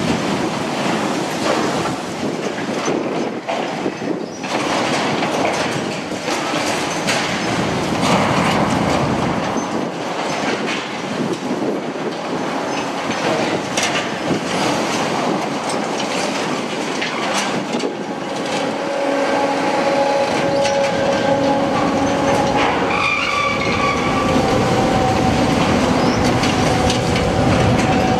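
Liebherr 954 demolition excavator's hydraulic shear crushing the concrete roof slab and tearing its steel framework: continuous crunching, cracking and clatter of breaking concrete and falling debris, with metal screeching that turns into steady squealing tones in the second half.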